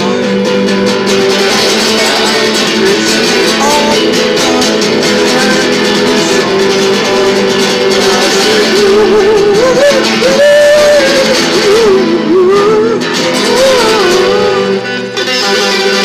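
A man singing with a wavering, bending voice while playing a guitar. The singing drops out about a second before the end, leaving the guitar alone.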